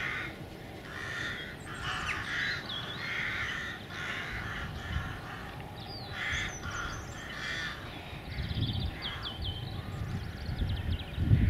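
Birds calling: a run of harsh caws, one or two a second, with a few brief higher chirps from smaller birds. A low rumble builds near the end.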